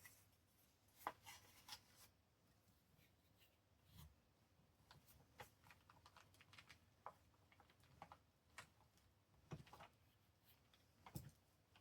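Near silence, with faint scattered rustles and light taps of paper being handled and pressed down by hand.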